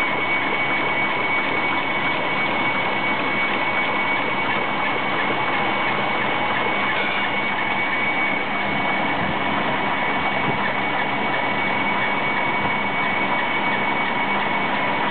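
Steady mechanical din of brush drilling and tufting machinery running, with a thin, steady high-pitched whine over it.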